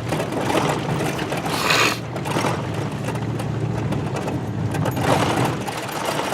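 Pickup truck being driven, heard from inside the cab: a steady low engine and road rumble with rattling noise, and a brief louder patch of noise about two seconds in.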